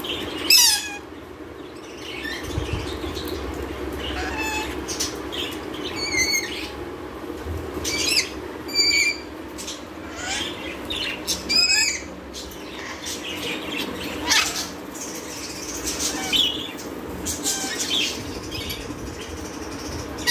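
Rainbow lorikeets giving short, shrill calls, about a dozen spread through, some sliding down in pitch, over a steady low hum.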